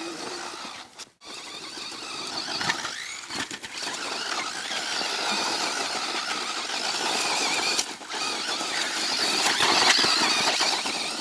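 Remote control car's motor whining as it drives, growing louder toward the end, with a brief dropout about a second in.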